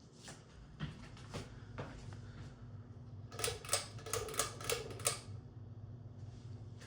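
Hunter Cool Revolutions ceiling fan: a few scattered clicks, then a steady low motor hum from just under a second in. In the middle comes a quick run of about eight louder, ringing clicks.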